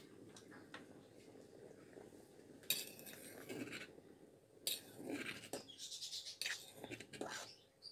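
A spoon stirring a pot of soup, scraping and knocking against the metal pot in a string of strokes that start about three seconds in.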